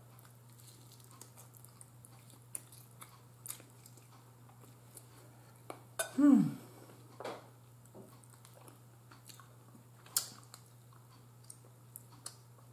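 Close-miked chewing and biting of air-fried chicken, with scattered small clicks and mouth sounds, over a steady low hum. About six seconds in there is a brief falling hum of the voice.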